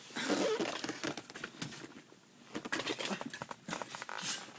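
Rustling, scraping and small irregular clicks of hands rummaging around a car seat and its cushions, searching for something dropped.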